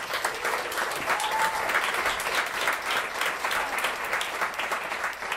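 Audience applauding: a roomful of people clapping together at the end of a talk.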